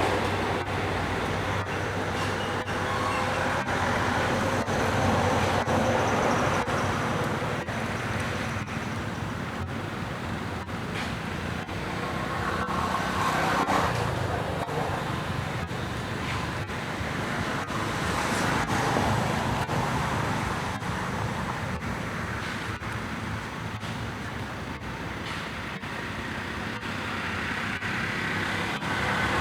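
Continuous road traffic noise, swelling and fading slowly as vehicles pass.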